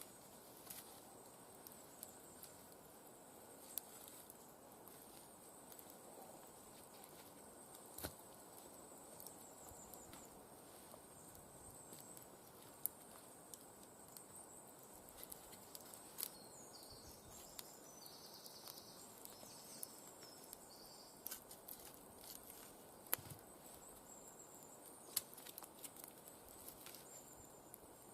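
Wood campfire burning quietly, with scattered sharp crackles and a few louder pops at irregular intervals over a faint steady hiss.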